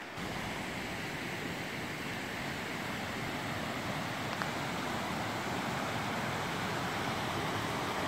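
The Selke river rushing steadily over rocky rapids, an even wash of water noise.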